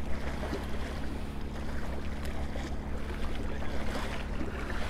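Steady wind noise and water washing against the dike's rocks, over a steady low hum, with a few faint clicks from handling the fish and hook.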